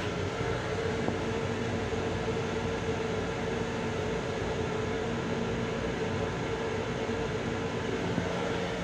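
Long Island Rail Road M7 electric railcar running, heard inside its restroom: a steady rumble with a constant mid-pitched hum.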